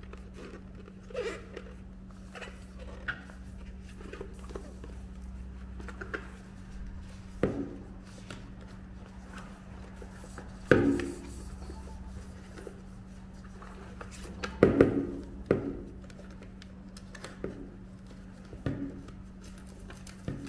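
A plastic hard hat and its suspension harness being handled on a table as a fabric neck shade is fitted: irregular knocks, clicks and rustles, the loudest about halfway through and a few more a few seconds later. A steady low hum runs underneath.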